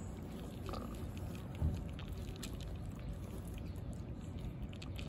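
Cats crunching dry kibble: many small crisp crunches and clicks over a low steady rumble, with one dull thump about one and a half seconds in.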